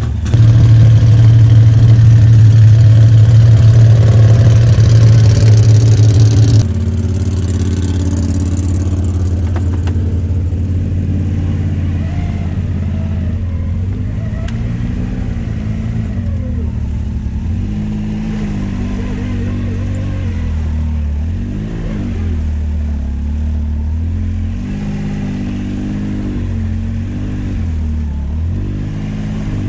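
Can-Am Maverick X3 side-by-side's engine running while the machine is driven slowly forward. It is loud for the first six seconds or so, then drops suddenly to a quieter running note with several small rises and falls in revs.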